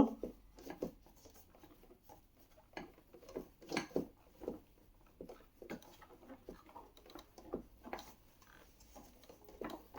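Irregular light taps, scrapes and rustles of a child car seat's plastic shell and harness webbing being handled, one or two a second.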